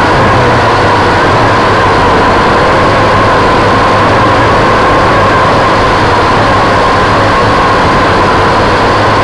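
Quadcopter drone's motors and propellers whining loudly, picked up by the camera mounted on the drone itself; a steady rushing hum with a whine whose pitch wavers slightly as the drone manoeuvres.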